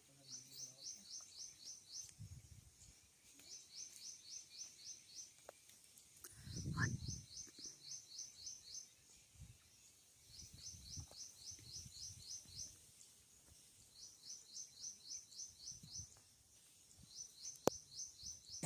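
A bird calling in the background: short runs of about six quick rising chirps, repeated every second and a half or so. About seven seconds in, a dull low rumble or bump is louder than the chirps.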